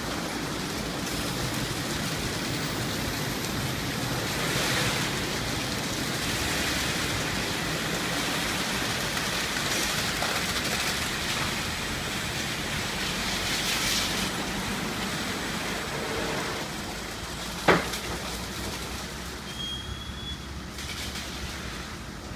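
Belanger Freestyler rollover car wash running over a car, its spinning brushes scrubbing the body under water spray: a steady rushing noise. One sharp knock about 18 seconds in, and a short high tone near the end as the noise eases.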